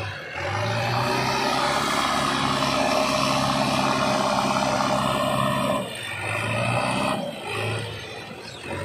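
JCB 3DX backhoe loader's diesel engine running steadily as the machine drives. The engine eases off about six seconds in and runs quieter near the end.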